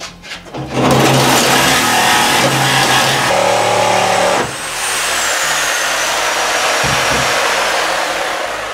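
Electric saw cutting through a car's sheet-steel roof pillar: a loud, harsh cutting noise that starts about a second in, dips briefly about halfway, then carries on with a faint high whine slowly falling in pitch, and dies away near the end as the saw stops.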